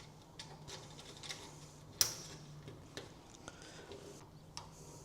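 Scattered small metallic clicks and taps as bolts and nuts are fitted by hand to the clamps on a Willys MB bonnet, with one sharper click about two seconds in. A faint steady hum runs underneath.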